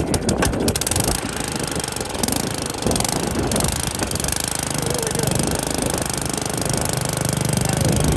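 Troy-Bilt Bronco tiller's small engine running on choke just after a cold start, at first rough and uneven, then settling into a steady run about five seconds in.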